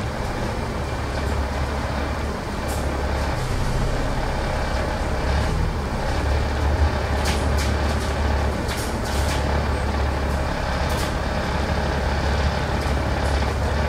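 Alexander Dennis Enviro500 MMC double-decker bus heard from on board, creeping forward in slow traffic: its engine runs with a steady low drone, with several short hisses over it.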